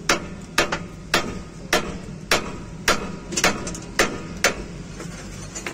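Hand hammer striking the steel tie-rod end and steering knuckle on a Hino truck's front axle: about ten sharp blows at roughly two a second, stopping about four and a half seconds in.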